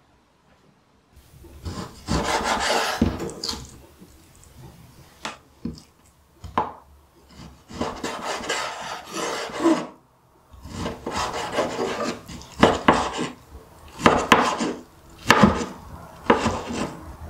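A chef's knife slices through a raw salmon fillet and dices it into cubes on a cutting board. It starts about a second in and goes in bursts of cutting strokes, with sharp taps as the blade meets the board.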